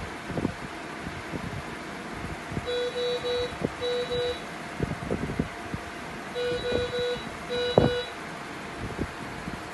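SLE5000 infant ventilator alarm beeping in a pattern of three short beeps then two, heard twice: the alarm for a detected pressure change at the patient connection. Under it are the ventilator's steady hum and irregular low knocks.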